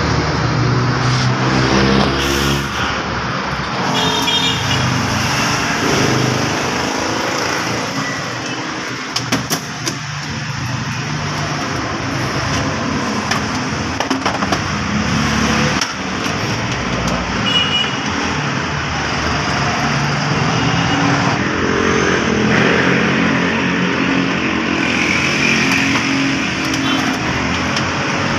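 Steady motor-vehicle engine and traffic noise with no power window motor whine standing out, and a few short metallic clinks of parts being handled on the workbench.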